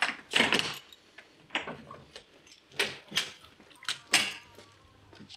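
A bunch of keys jangling and clicking in a door lock as the door is unlocked: a series of separate sharp clicks and rattles.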